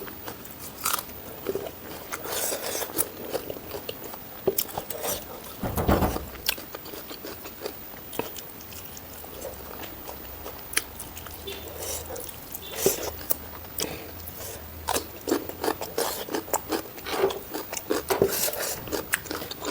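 Close-miked eating sounds: a person chewing and biting, with many short, irregular mouth clicks and smacks and a heavier thump about six seconds in.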